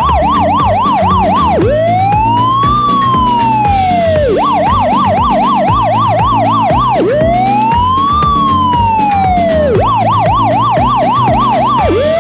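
Electronic emergency-vehicle siren switching back and forth between a fast yelp, about four pitch cycles a second, and a slow wail that rises and falls over nearly three seconds, with background music underneath.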